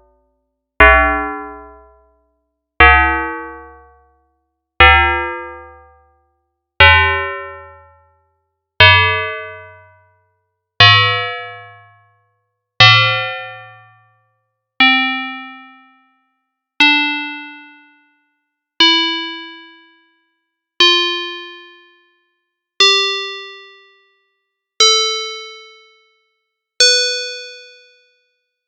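Bell tones made by frequency-modulation synthesis in Csound, one struck note every two seconds, each dying away smoothly. The notes climb in pitch, fall back about halfway through, then climb again.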